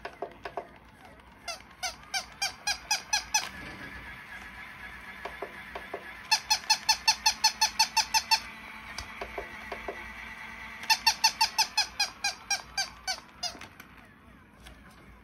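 A walking dog toy giving three runs of rapid, evenly spaced squeaky yips, about four or five a second, over the faint steady hum of its running motor.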